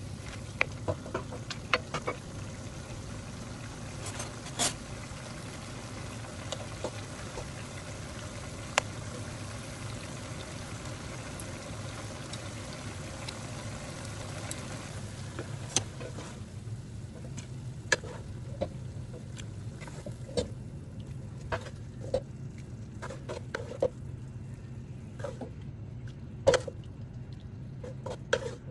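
Squid and bell pepper stir-frying in a wok: a steady sizzle with the wooden spatula clicking and scraping against the pan. About halfway through, the sizzle dies away, leaving scattered clicks and knocks over a steady low hum.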